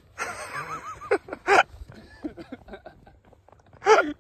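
Young men's voices shouting, yelping and laughing: a noisy, wavering cry near the start, then short sharp yells about a second and a half in and again near the end.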